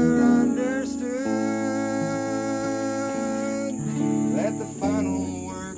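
Stratocaster-style electric guitar playing a slow melody of long held notes, with string bends about four seconds in.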